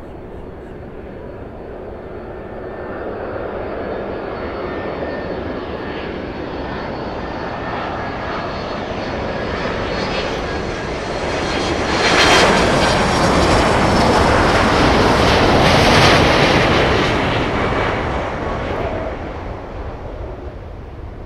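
Boeing 767-300ER's two GE CF6-80C2B4 turbofans at approach power on final approach: a jet rush with a high fan whine building steadily. It jumps to its loudest about twelve seconds in as the airliner passes close, then fades as it flares over the runway.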